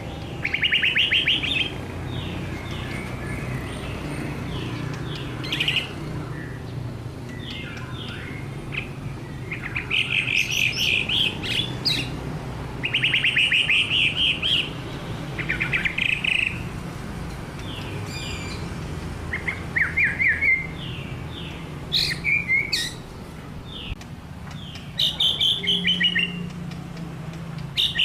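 White-rumped shama singing in vigorous, repeated phrases of rapid trilled notes, each phrase about a second or two long with short pauses between, over a low steady hum.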